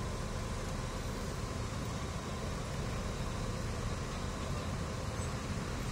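Diesel engines of heavy construction machinery, a mobile crane and work trucks, idling steadily as a low, even drone.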